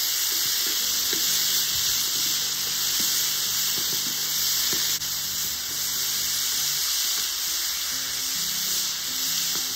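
Chicken breasts sizzling steadily in hot oil in a wide pan over wood coals as they are turned with metal tongs, with a few faint clicks. Soft background music with low notes plays underneath.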